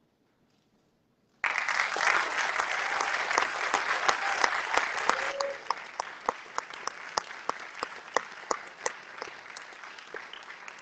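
Theatre audience applauding, starting suddenly about a second and a half in after a brief silence. Dense at first, it thins after about four seconds to fewer, more distinct claps.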